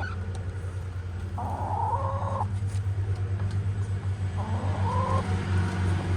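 Backyard hens calling: two drawn-out calls of about a second each, over a steady low hum.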